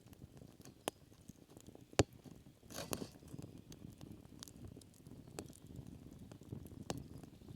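Scattered sharp clicks and light crackles over a low rustling background, with one louder click about two seconds in.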